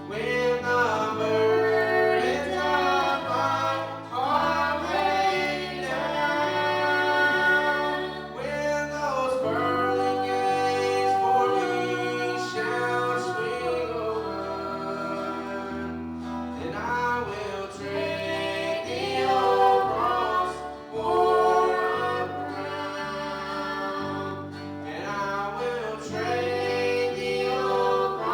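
A song sung with instrumental accompaniment: a voice over guitar and a bass line that steps from note to note.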